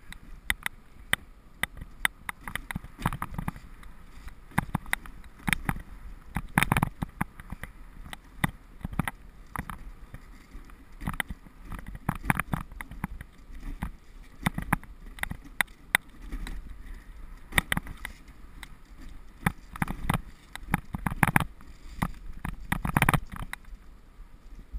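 Wooden dog sled sliding along a snowy trail: a steady scraping hiss of the runners on snow, with frequent irregular knocks and rattles as the sled bumps over the track.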